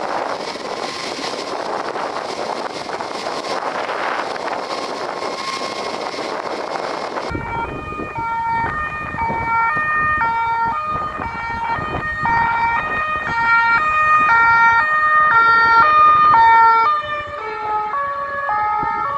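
French emergency-vehicle two-tone sirens alternating high and low about twice a second, growing louder, with a second siren at a different pitch overlapping near the end. Before them, for about seven seconds, there is a steady even roar of noise.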